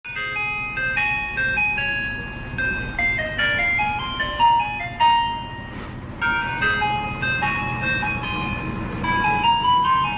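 Ice cream truck's chime playing its jingle, a melody of single high notes, over the low rumble of the truck's engine; it starts suddenly at the beginning.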